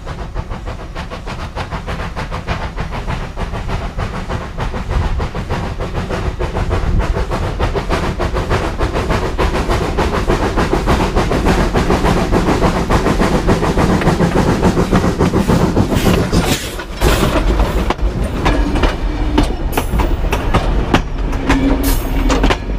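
Vulcan-built 1930 steam locomotive, Lehigh Valley Coal No. 126, approaching along the track and then rolling directly over a rail-level microphone, growing steadily louder with rapid rhythmic knocking. In the last few seconds the cars pass overhead with heavy wheel rumble and clacking over the rails, and a few brief high squeals.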